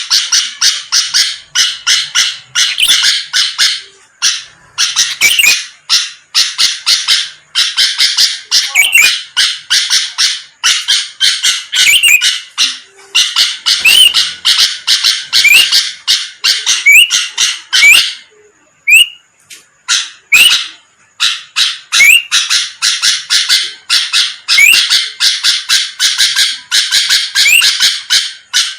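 Sooty-headed bulbul (kutilang) calling rapidly and continuously: dense, harsh chattering phrases mixed with short rising whistled notes, with a few brief pauses.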